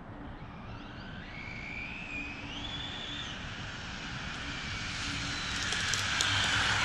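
Arrma Granite RC truck's stock BLX 3200 kV brushless motor whining as it accelerates, the pitch climbing in steps over the first few seconds. The sound then grows louder to a rush of motor and tyres with a high, falling whine near the end.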